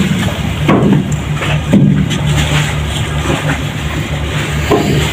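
Wooden planks knocking and clattering as they are handled and set down, half a dozen scattered knocks over a steady low machine hum.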